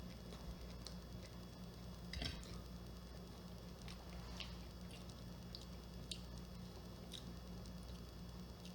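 A person quietly chewing a crispy breaded fried bluegill fillet: a few soft, scattered crunches and wet mouth clicks, the most distinct about two seconds in, over a low steady hum.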